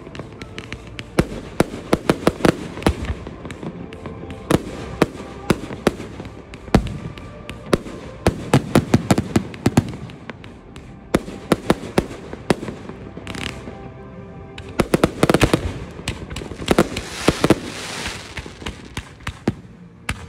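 Aerial fireworks display: shells launching and bursting in quick succession, a string of sharp bangs with crackling flurries. The barrage is thickest about eight seconds in and again from about fifteen seconds.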